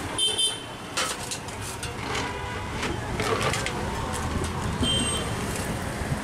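Stainless steel containers and a steel bowl clinking and knocking on a steel counter, two of the clinks ringing briefly, over a steady background hum of street traffic.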